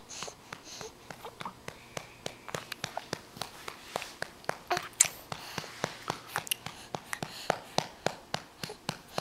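A hand patting a baby's back to bring up a burp: a run of soft, quick pats, about three a second, some harder than others.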